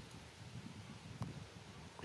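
Faint outdoor background: a low, uneven wind rumble on the microphone, with one light click a little past a second in.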